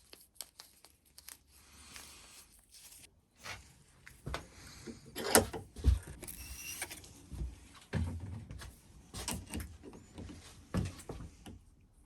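Irregular metal clicks, knocks and short scrapes of hand tools being handled on a small steel part, as a thread is cut by hand into a turned mild-steel valve dust cap. The loudest knocks come a little past halfway.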